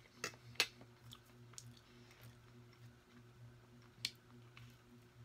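Close-up eating sounds: a fork clicking sharply against a metal baking tray twice near the start, then soft chewing and mouth sounds, with one more sharp click about four seconds in.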